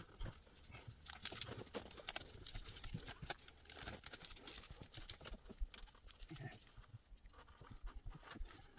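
Faint, irregular clicks and taps of hand tools and parts being handled during work on a gas pipe fitting.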